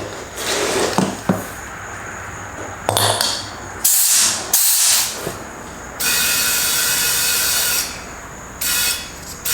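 Compressed air hissing from an air chuck in several bursts, with one long steady fill of about two seconds, as a riding mower tire is pumped up toward 30 PSI to make a slow leak easier to find.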